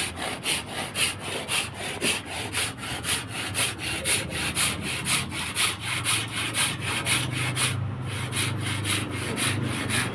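Rhythmic back-and-forth rasping of a hand tool worked in steady strokes, about three a second, with a brief pause near eight seconds. A low steady hum rises beneath it in the second half.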